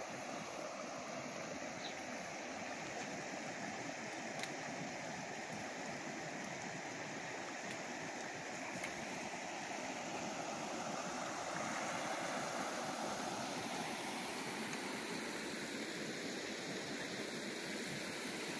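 Shallow creek water running steadily over rocks and stones.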